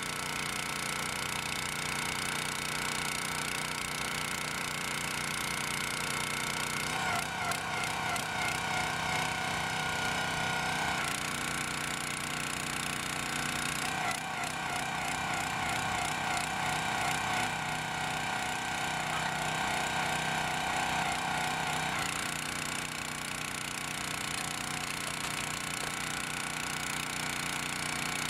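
The 6.5 PS OHV petrol engine of a Jansen HS-22A62 hydraulic log splitter runs steadily. Twice, about seven seconds in and again from about fourteen to twenty-two seconds, a louder, higher whine joins it as the operator drives the splitting ram.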